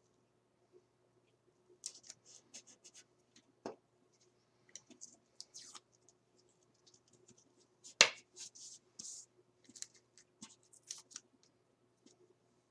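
Pencil strokes scratching on drafting paper in short, irregular bursts, with a dull knock just under four seconds in and a single sharp click about eight seconds in, the loudest sound.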